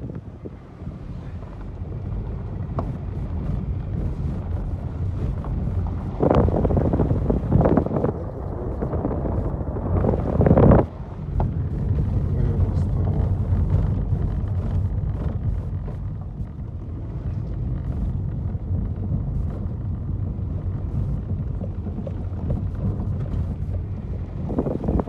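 Car driving on a country road, heard from inside: a steady low rumble of engine and tyres, with wind buffeting the microphone and a few louder, rougher stretches near the middle.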